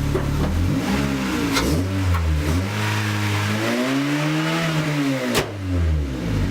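Honda Civic Si's 2.4-litre four-cylinder engine idling, then revved in a few short blips from about a second in and one longer rev that rises and falls back to idle near the end. The header-to-exhaust joint has just been rebolted and sealed, and the exhaust now leaks much less.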